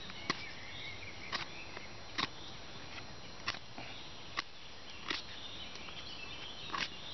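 Unsharpened plastic ice scraper carving a fresh green branch: about seven short, sharp scraping strokes at irregular intervals, roughly one a second. Birds sing faintly in the background.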